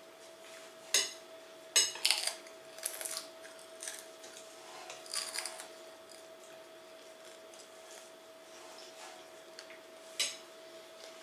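Dishes and cutlery clinking and scraping in a few short sharp knocks, most of them in the first three seconds and a single clink near the end, over a faint steady hum.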